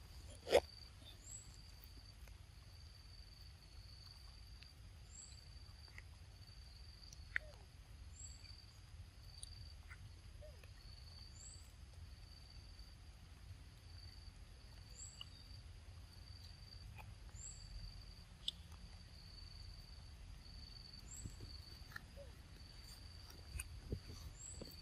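Quiet forest ambience: a steady high insect trill with a short high chirp repeating every two to three seconds. Occasional faint clicks of monkeys chewing and handling mango, one sharper click about half a second in.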